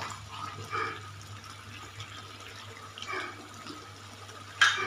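Thick beef karahi gravy bubbling and sizzling in an iron karahi, with a steel spoon scraping through it a couple of times and a sharp clink of metal on the pan near the end.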